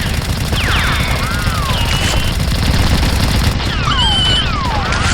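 Sustained rapid machine-gun fire, a dense unbroken rattle, with several high whistling glides rising and falling over it.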